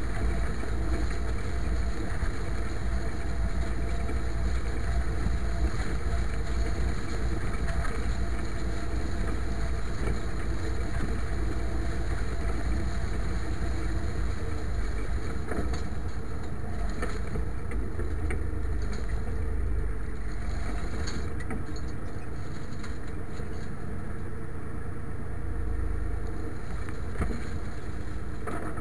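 IMT 539 tractor's three-cylinder diesel engine running steadily while pulling a harrow across a sown wheat field.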